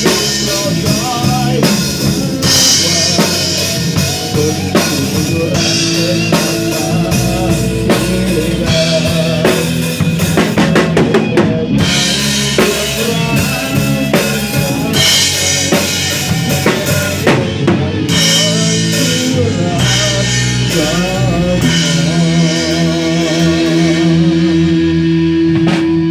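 A band playing an instrumental passage of a Thai pop-rock song, driven by a drum kit with bass drum and snare. Near the end a long held note wavers in pitch over sustained chords.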